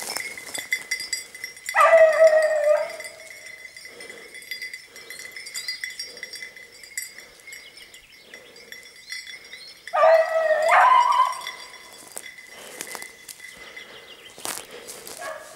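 Beagle baying on a hare's trail: two drawn-out bays, one about two seconds in and one about ten seconds in, each lasting about a second.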